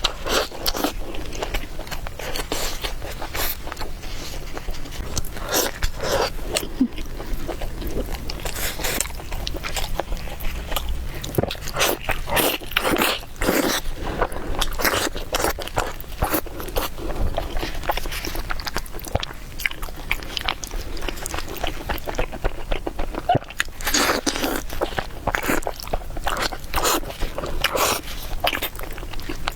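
Close-miked eating: a person chewing and biting food, with an irregular run of short mouth clicks and smacks throughout.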